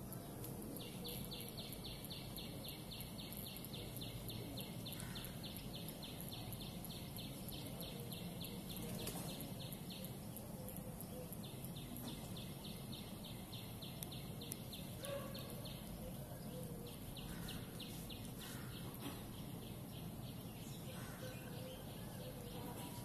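A high, rapidly pulsing animal trill, several pulses a second, in three long runs: about nine seconds from near the start, a shorter run around the middle, and another near the end. Under it a steady low background rumble.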